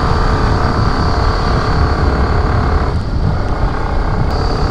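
Aprilia scooter's engine running steadily while riding, under heavy wind rumble on the microphone.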